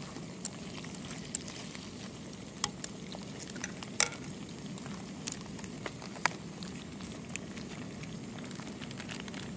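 Sliced starch sausage sizzling steadily as it stir-fries in a small pan on a gas camping stove. Chopsticks clack against the pan now and then, loudest about four seconds in.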